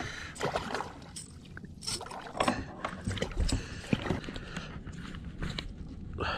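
A hooked catfish being reeled in and landed, heard as irregular clicks, scrapes and splashy noises of the tackle and water.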